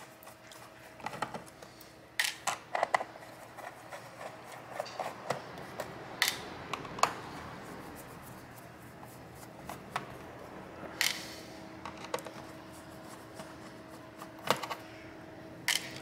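Scattered small clicks, taps and scrapes of a screwdriver and loose screws being handled while screws come out of a laptop's bottom panel, over a faint steady hum.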